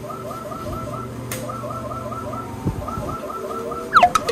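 Claw machine's electronic game tune looping, a rapid repeating pattern of short chirping notes over a low hum. A sharp clack comes with a quick falling tone near the end.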